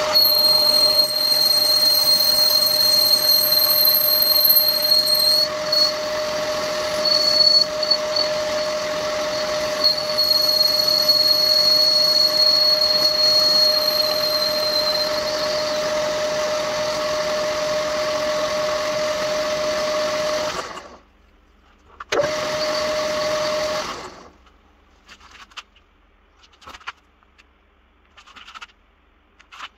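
Old metal lathe running with a steady whine while a tool cuts a bronze bushing, with a thin high ring during the cut for the first fifteen seconds or so. The lathe is switched off about twenty seconds in, run again for a couple of seconds, then stops, leaving a few light clicks.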